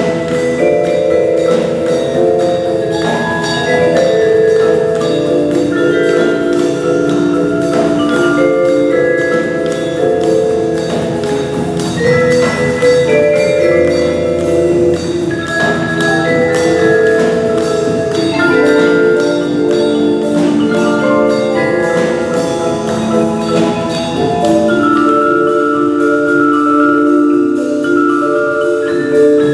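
Percussion ensemble playing a klezmer-style piece on mallet instruments such as marimbas and xylophones: a melody of held and repeated notes over lower chords.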